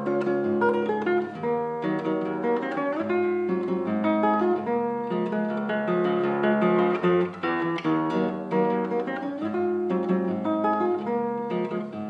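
Background music of acoustic guitar, plucked and strummed notes in a steady flow.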